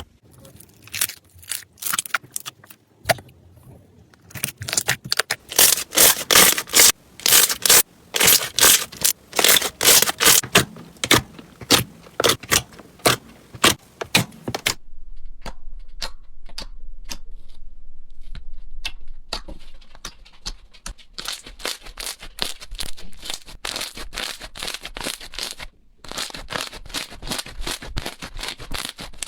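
Slime being squeezed and pressed by hand: dense crackling and popping clicks, loudest in the first half. The texture changes abruptly about halfway through and again near the end.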